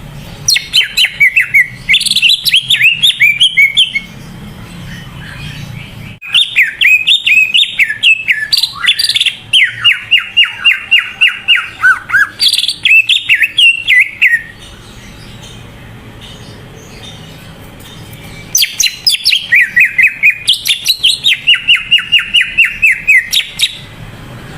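Cucak ijo (green leafbird) in full song: three long runs of rapid, repeated whistled notes, each lasting several seconds, with short pauses between them.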